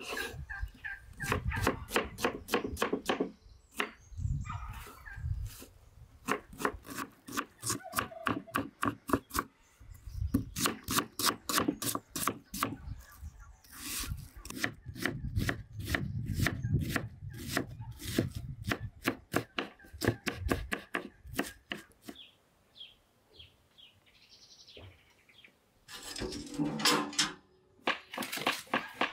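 Kitchen knife chopping onion on a wooden cutting board: quick, even knocks of the blade on the board, about four or five a second, in runs with short breaks. The chopping stops for a quieter stretch near the end.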